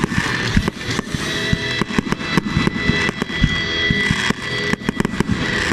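Fireworks display: rapid, overlapping bangs and crackles of exploding shells, with music playing underneath.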